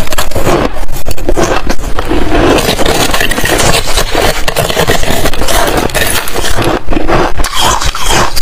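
Metal spoon scraping frosty, shaved ice from the inside wall of a hollow balloon-ice sphere: a loud, continuous gritty scraping full of small crackles.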